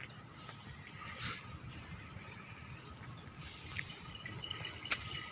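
Steady high-pitched drone of insects in the trees, unbroken, over a low rumbling background, with one short click near the end.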